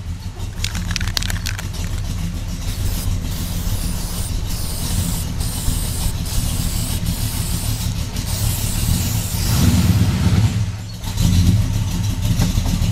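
Pontiac car engine running at idle, a steady low exhaust note heard from behind the car. It gets louder about nine and a half seconds in, dips briefly, then stays louder until near the end.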